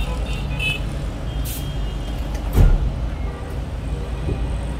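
Steady low rumble of road traffic and vehicle engines, heard through a parked car's open door, with one brief thud about two and a half seconds in.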